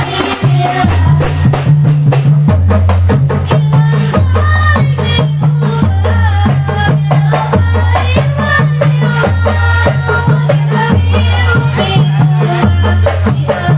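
A rebana ensemble playing a sholawat: girls' voices singing in unison over jingling genjring frame drums, ketiplak hand drums and a jidor bass drum in a steady rhythm. A deep bass alternates between two notes about once a second.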